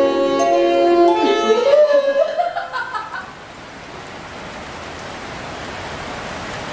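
Music playing, which stops about three seconds in and gives way to a steady hiss of rain.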